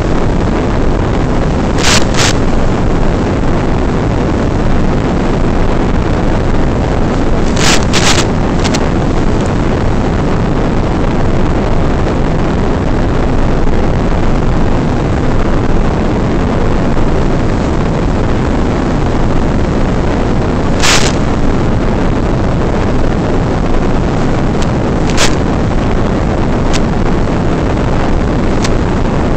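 Loud, steady rushing hiss on the audio of the RC airplane's analog FPV video downlink, recorded in flight, broken by a handful of sharp clicks, two of them close together.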